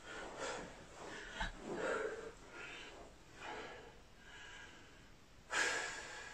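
A man breathing hard, catching his breath in a short rest between exercise sets, with a louder exhale near the end.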